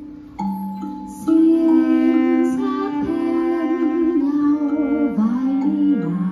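A woman singing a slow, wavering melody over a bowed cello. The cello holds a low note at first, and the voice comes in louder about a second in.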